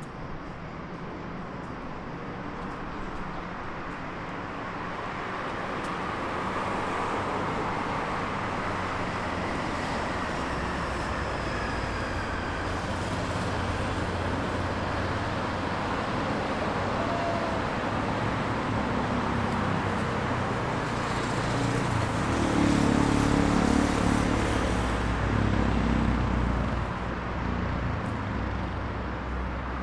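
City road traffic: a steady roar of cars passing along a busy street. It swells as one louder vehicle with a deep engine hum passes close, loudest about three quarters of the way in, then eases off.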